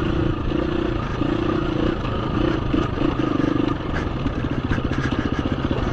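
KTM 350 EXC-F single-cylinder four-stroke dirt bike engine on a slow trail, the throttle opened and shut in short bursts. After about four seconds it settles into a steady low-speed chug.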